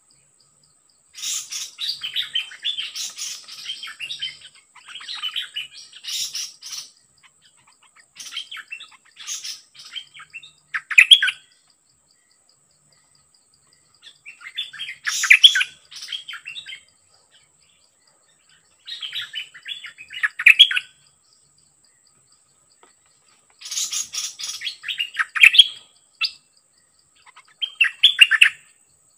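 Nok dok taeng songbird singing in about eight short, bright, chattering phrases of one to three seconds each, with pauses between them. These are decoy-trapping calls around a caged decoy. A faint steady high insect drone runs underneath.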